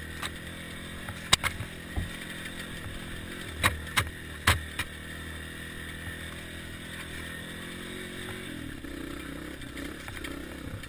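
Honda CRF230F dirt bike's single-cylinder four-stroke engine running steadily as it rides single-track trail, heard from the rider's helmet camera, with several sharp knocks in the first five seconds. The engine note changes about eight and a half seconds in.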